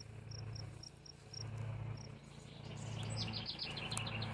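Outdoor ambience: an insect chirping in short, even pulses about four times a second for the first two seconds, over a steady low hum. About three seconds in, a bird sings a quick trill of falling notes.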